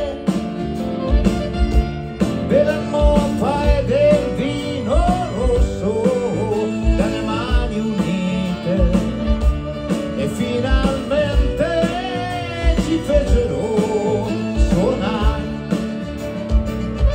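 Live pop-rock band playing an instrumental passage with no lead vocal: a steady kick-drum beat, bass guitar and piano, with a melody line bending in pitch over them.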